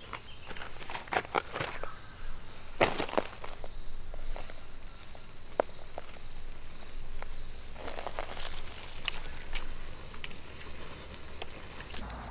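Insects droning steadily at a high pitch, with scattered clicks and rustles of footsteps on dry ground and sticks being handled, loudest about three seconds in.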